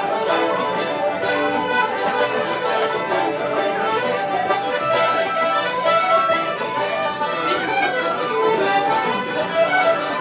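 Irish traditional session music: several instruments playing a tune together, with accordion prominent.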